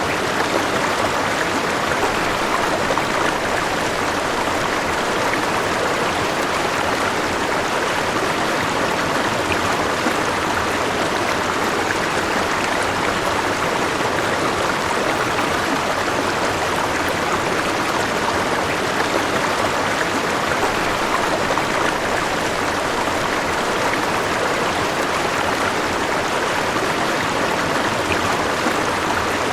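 River water flowing and babbling over stones, a steady rushing with fine splashing.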